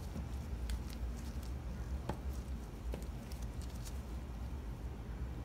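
Faint, irregular clicks and taps of a knife cutting clear glycerin soap base into small cubes that drop into a plastic tub, over a low steady hum.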